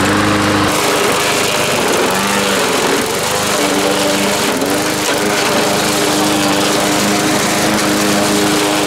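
Gasoline push lawn mower's small engine running loudly and steadily while being pushed through watermelon chunks, its pitch dipping briefly a few times as it takes the load.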